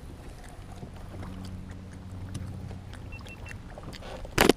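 Plastic snack bag being handled close to the microphone: faint crackles over a low steady hum, then one brief loud rustle near the end as the bag brushes against the microphone.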